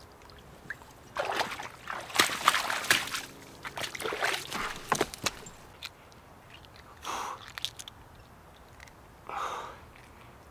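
Creek water splashing and sloshing in a run of irregular bursts as a hooked fish is hauled out of the water on an improvised branch rod and line, followed by two short, softer sounds.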